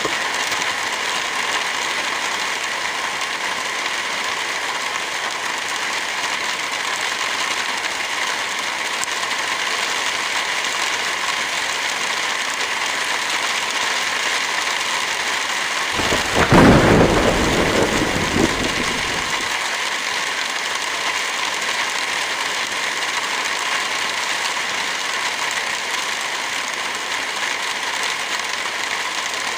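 Heavy rain falling steadily. About halfway through, a clap of thunder cracks and rumbles away over about three seconds.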